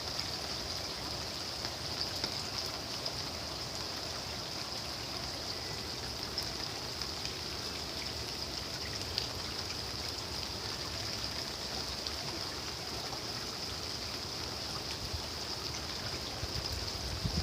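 Steady rain with water trickling and dripping: an even hiss of falling water with faint scattered drop ticks.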